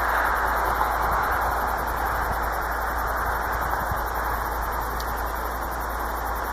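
Steady static-like hiss that fades slightly over a few seconds, with no distinct events in it.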